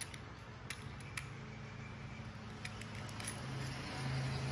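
Faint, light metallic clicks and clinks, a few scattered taps, as a stainless steel wristwatch is handled. A low steady hum comes in and grows louder near the end.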